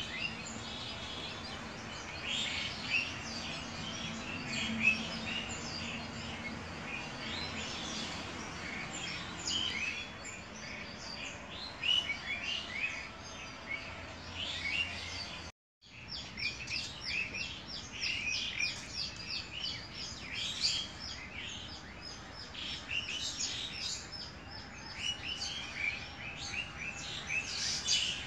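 Many small birds chirping busily, quick high calls overlapping, with a brief break just past halfway.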